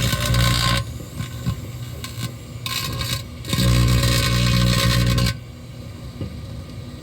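Microwave oven running with a foil-suited figure inside arcing. Loud crackling, buzzing bursts of arcing over the oven's steady hum, one lasting until about a second in and a longer one from about three and a half to five seconds, with scattered snaps between.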